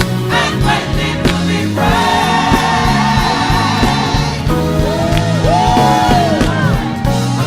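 Gospel choir singing over instrumental backing with a steady bass line: a chord is held for a couple of seconds, then the voices slide through a sweeping run.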